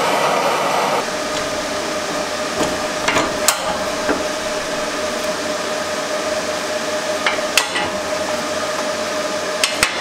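A hand torch's flame hisses for about a second, then the steel workpiece and the table clamp clank and knock as they are handled: two knocks about three seconds in, two more about seven and a half seconds in and two near the end, over a steady background hum.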